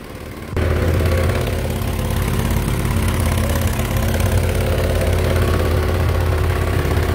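Small boat's motor running steadily under way, with the hiss of water rushing past the hull. The sound jumps sharply louder about half a second in, then holds steady.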